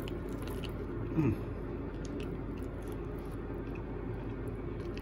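A person chewing a mouthful of smoked salmon, with small wet mouth clicks and a short falling hum about a second in.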